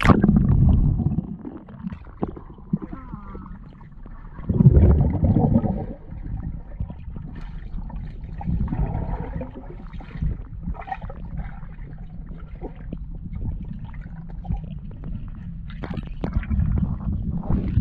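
Muffled underwater sound of a swimming pool picked up by a submerged camera: a steady low rumble with gurgling and crackling bubbles. A loud rush of water and bubbles about five seconds in, as a child dives down to the bottom.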